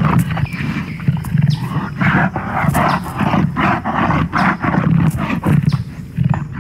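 Dinosaur vocalisation sound effects: loud, deep growling roars, with rasping pulses about three times a second through the middle.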